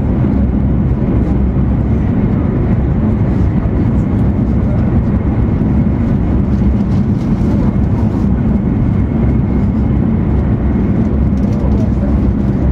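Inside the passenger cabin of an E2 series Shinkansen running at high speed: a steady low rumble with a constant hum under it.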